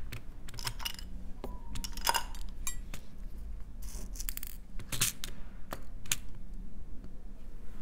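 Scattered light clicks and clinks of small nail-art charms and stones being picked through and handled, a dozen or so short taps, the loudest about two and five seconds in.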